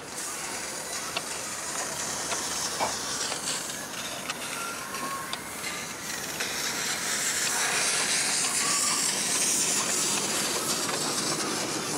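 Miniature steam locomotive letting off steam: a steady hiss that swells louder about seven seconds in, with a few light clicks in the first half.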